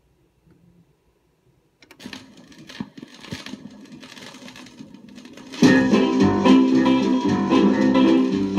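A rockabilly novelty 45 playing on a turntable. Near silence first, then a click about two seconds in and a quiet stretch with crackle. Near the end the loud guitar-led band intro of the song starts.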